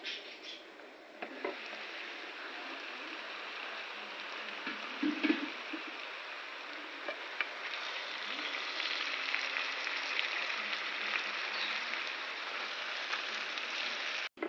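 Shredded vegetables and meat sizzling as they fry in a hot skillet, a steady hiss, with a few knocks of a utensil stirring through them, the loudest about five seconds in.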